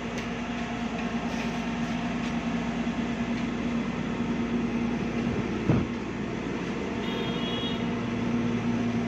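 Steady mechanical hum from a background machine, with a single thump a little past halfway.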